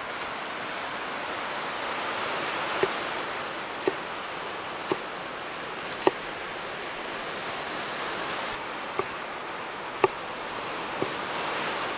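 Large chef's knife slicing a red onion and then a lemon on a wooden cutting board, each cut ending in a sharp knock on the board, roughly once a second. Behind it runs a steady rushing noise.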